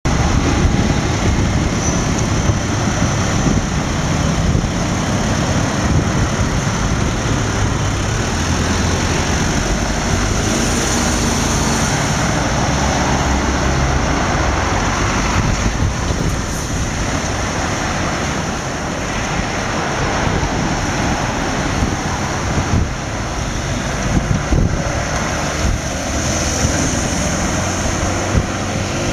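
Busy road traffic close by: cars and a skip-loader truck driving through an intersection, a continuous mix of engine hum and tyre noise with no let-up.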